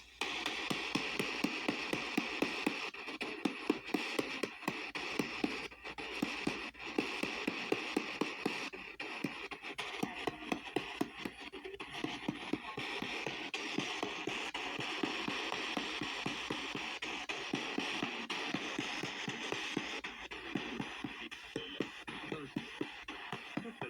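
P-SB7T spirit box sweeping the AM band at 250 ms steps: choppy radio static with a click at each station change and clipped fragments of broadcast sound. It starts abruptly at the beginning.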